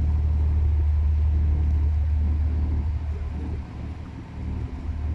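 Ship's diesel engine running at a steady low hum close by, easing off briefly near the end before picking up again.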